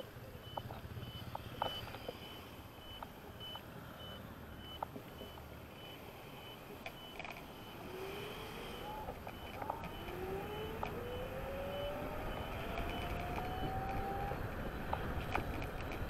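Electric kick scooter on the move: the motor's whine rises in pitch over several seconds in the second half, as the scooter speeds up, over road and wind noise with scattered rattling knocks. For about the first half a high beep repeats two to three times a second, then stops.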